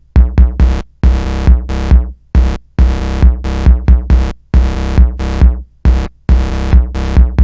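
Techno: a drum-machine kick on a steady beat, a little over two beats a second, under short chopped synth chord stabs.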